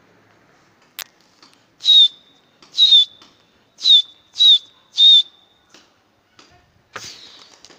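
A person whistling five short, loud, sharp blasts, each dipping slightly in pitch, the kind of whistling pigeon keepers use to work a flock in flight. A sharp click comes about a second in.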